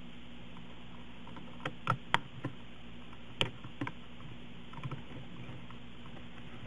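Plastic clicks from an HP laptop keyboard as its keys are pressed by hand while a replacement key is fitted: a few sharp clicks about two seconds in, two more around three and a half seconds, and faint taps near five seconds, over a steady low hum.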